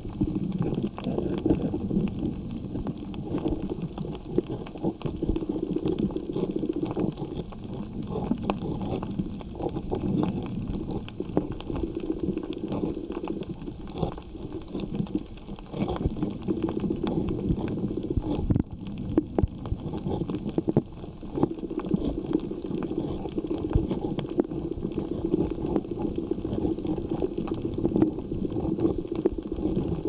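Underwater reef sound heard through a camera housing: a steady, muffled rumble of moving water, scattered with many small clicks and crackles.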